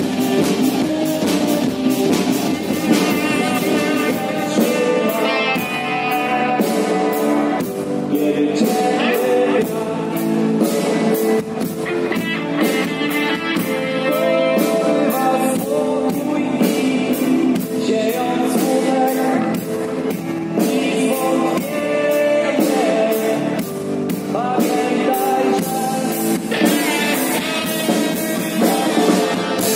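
Upbeat dance-band music with a steady drum beat, guitar and a singing voice.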